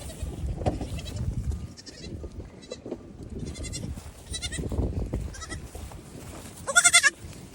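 Young goat kids bleating again and again in short, high, wavering calls, the loudest one near the end. Under the calls there is low, scattered thumping and rumbling.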